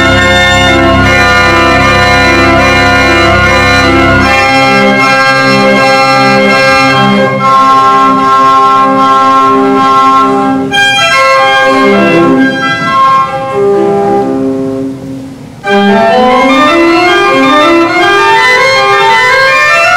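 Newly renovated church pipe organ playing sustained chords over a low pedal bass that drops out about four and a half seconds in. The music eases off briefly near fifteen seconds, then runs of notes climb upward.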